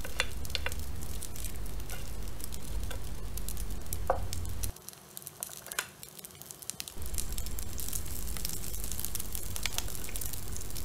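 Cold leftover rice frying in hot oil with garlic in a non-stick pan, with a faint sizzle and a few sharp taps as the last rice is scraped into the pan. A low steady hum runs under it and drops out for about two seconds midway.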